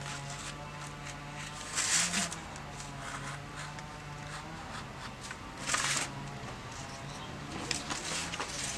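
Snap-off utility knife blade scratching and slicing through thick paper along a cut outline, with the sheet rustling, in a few short scratchy bursts, the loudest about two and six seconds in. A steady low hum runs underneath.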